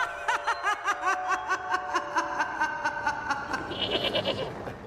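A woman laughing hard in a long rhythmic run of "ha-ha-ha" bursts, about four a second, that trails off after about three and a half seconds.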